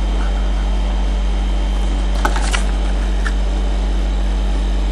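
Steady electrical hum and hiss, broken past the middle by a few quick crinkles and clicks from a trading-card pack being opened and its cards handled.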